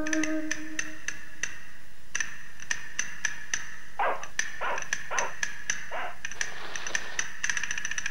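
Sharp, ringing ticks repeating about three times a second, with a run of short chirps about four to six seconds in.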